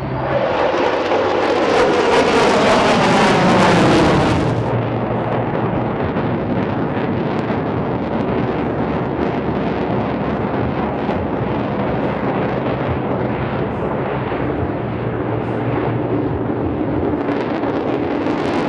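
F-35 fighter jet passing by, its engine's pitch falling steadily over the first four seconds or so; the high hiss then drops away and a steady rumble carries on.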